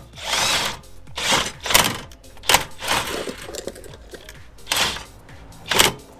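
DeWalt 20V cordless impact driver spinning a scissor stabilizer jack's drive screw in several short bursts, lowering the jack onto its pad.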